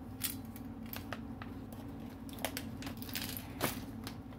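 Clear plastic packaging being handled on a tabletop: a few scattered crinkles and light taps over a steady low hum.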